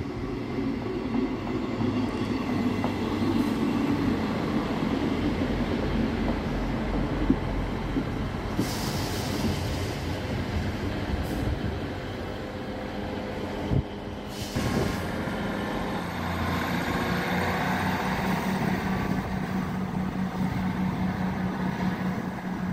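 Diesel multiple unit passing close alongside the platform, its engine and wheels running on the rails. About fourteen seconds in the sound cuts to a Class 158 Express Sprinter diesel unit approaching, with a steady engine hum.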